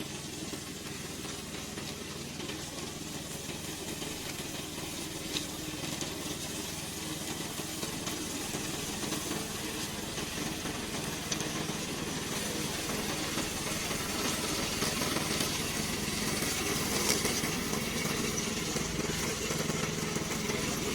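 Remote-controlled lawn mower's engine running steadily, growing gradually louder.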